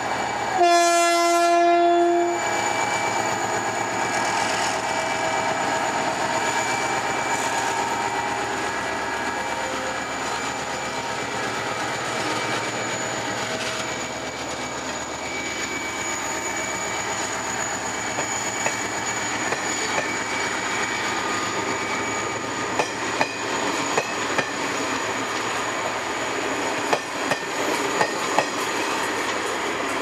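GT22 diesel-electric locomotive sounding its horn in one blast of about a second and a half near the start, then running steadily as it pulls its train away. Near the end the passing coaches' wheels click over the rail joints.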